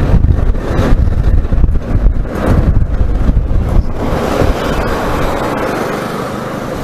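Bajaj Avenger motorcycle riding at road speed: wind buffeting the microphone over the engine and road rumble. The low rumble eases about four seconds in, leaving a steadier hiss.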